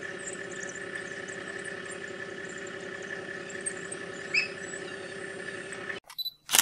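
A vehicle engine idling steadily, with faint high chirps over it and one louder short chirp about four seconds in. Near the end the sound cuts out briefly and a sharp click follows.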